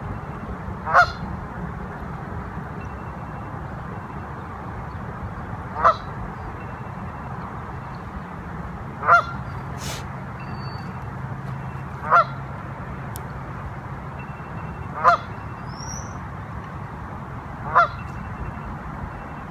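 A goose honking: single short honks about every three seconds, six in all, over a steady background rush.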